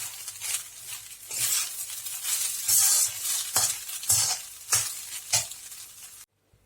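Seasoned rice being stirred and scraped around a hot pan, sizzling in ghee, with a scraping stroke about every half second to second. The sound cuts off suddenly near the end.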